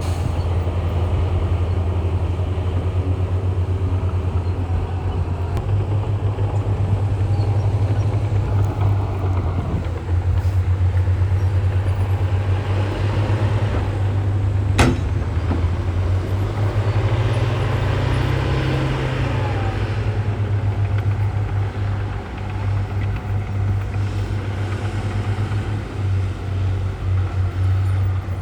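Heavy diesel earthmoving machinery running steadily with a deep, continuous engine drone that rises and falls a little, and one sharp knock about fifteen seconds in.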